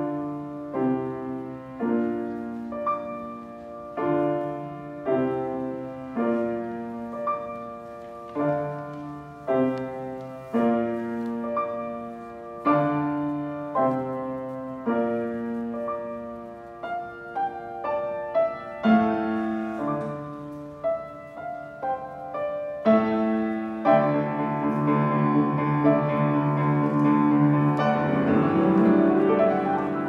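Grand piano played solo: chords struck about once a second, the texture turning denser and louder in the last quarter, with a fast rising run near the end.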